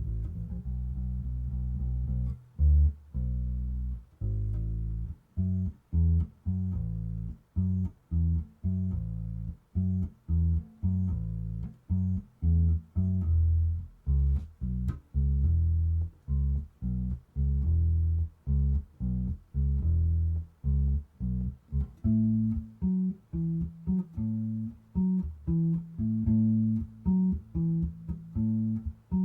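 Squier 40th Anniversary Precision bass with flatwound strings played through an Ampeg B50R combo amp, heard through a room microphone: a bass line of many short, separated notes with brief gaps between them.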